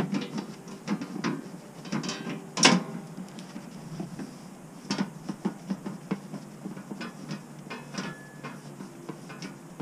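Irregular small metal clicks and taps as loosened bolts are turned out by hand and lifted from the snow plow's steel panel, with a few louder knocks in the first half.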